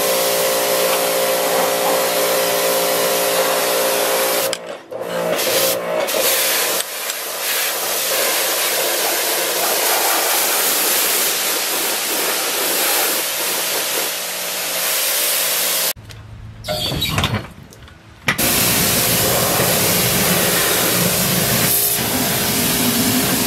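Pressure washer jet spraying hard against a truck's undercarriage and wheel well: a loud, steady hiss of water, with a steady hum from the washer under it for the first few seconds. The spray stops briefly twice, then for about two seconds roughly two-thirds of the way through, before starting again.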